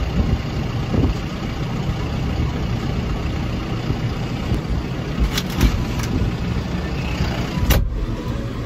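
Tractor diesel engine running steadily, heard from inside the closed cab. A few sharp clicks or knocks come in the second half.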